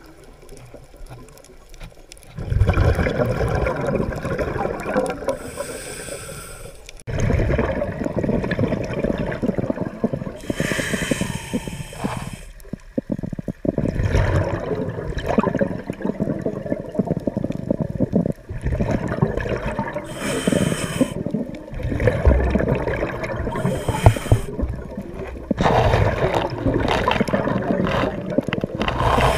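Underwater sound of a scuba diver breathing through a regulator: repeated rushes of exhaled bubbles gurgling in stretches a few seconds long with short breaks between them, starting about two seconds in.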